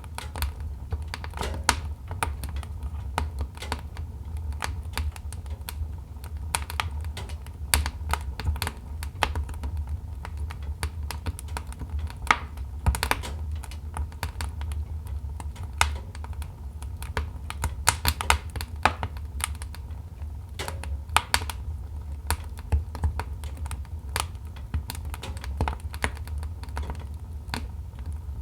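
Wood fire in a fireplace crackling: irregular sharp pops and snaps from the burning logs over a steady low rumble of the flames.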